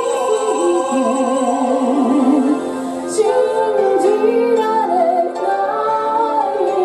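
A woman sings a pop song into a handheld microphone over a recorded keyboard backing track, holding one note with a wide vibrato about a second in.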